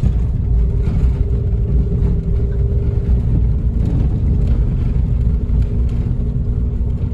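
Car climbing a steep cobblestone street, heard from inside the cabin: the tyres rumble over the stones under a steady engine hum that steps down in pitch about three seconds in.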